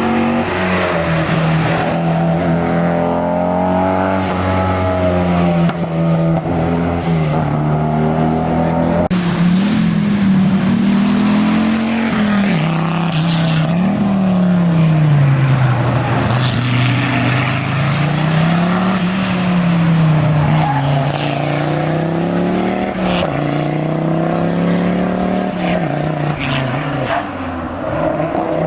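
Historic rally car engine at full effort on a special stage, its revs rising and falling again and again through acceleration and gear changes. About nine seconds in the sound changes abruptly.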